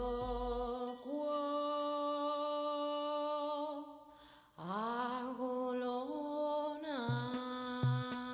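Background music: long held notes that slide up into pitch as each begins, with a light beat at the start and again near the end, and a short dip about four seconds in.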